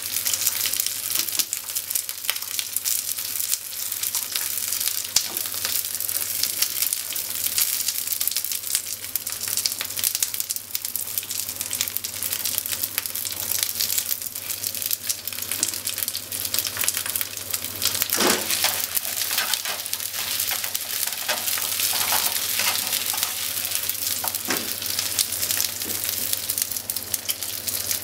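Atsuage (thick fried tofu) cubes sizzling and crackling steadily in hot oil in a frying pan. A few soft knocks come as the pieces are turned with cooking chopsticks.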